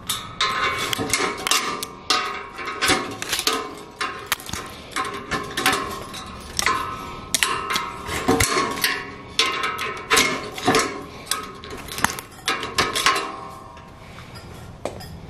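Steel tie wire being wrapped around rebar crossings and twisted tight with pliers: a quick, uneven run of metallic clicks, scrapes and small clinks that stops near the end.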